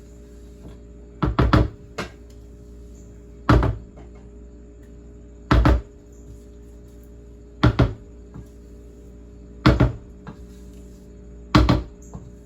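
Short clusters of knocks, about one every two seconds, over soft steady background music.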